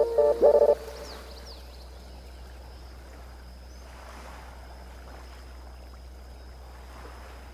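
Soft, steady wash of sea waves on a beach, with a few faint high bird chirps about a second in. Chime-like music notes cut off just at the start.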